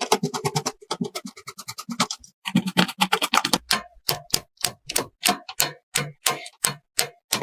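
A rapid run of sharp clicks and clacks, several a second, some carrying a brief tone.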